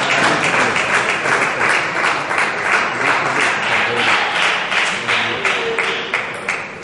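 Spectators applauding after a point, clapping in unison at about three claps a second, dying down near the end.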